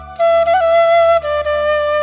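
Background music: a slow melody of long held notes with small pitch bends over a steady low drone, stepping down to a new note a little past halfway.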